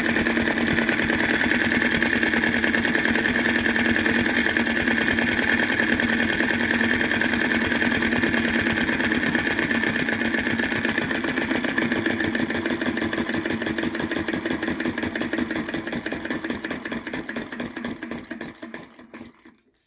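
RETROL VE-01 crossbeam vacuum (flame-eater) model engine running on its first run: a rapid, even mechanical clatter with a steady hum under it. It dies away near the end.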